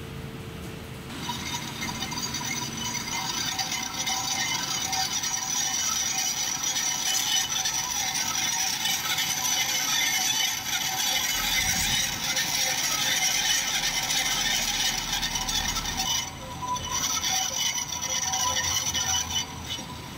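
Metal lathe cutting a bronze bushing, the cutting tool scraping and rattling against the metal with a high ringing edge. It starts about a second in, breaks off briefly near the end and resumes for a few more seconds before stopping.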